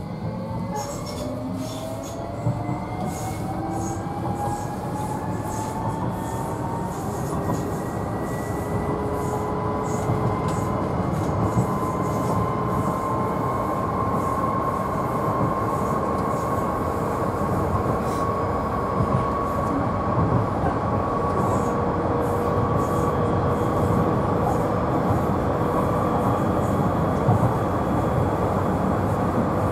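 Docklands Light Railway train heard from inside the front car. Its electric traction motors whine, the pitch rising as it gathers speed over the first ten seconds or so and then holding steady at speed. Underneath is a steady rumble of wheels on rail with occasional short clicks.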